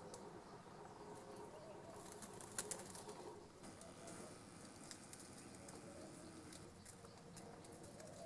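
Faint wingbeats of a woodpecker flying off, with one sharp tick about two and a half seconds in, over a low hiss.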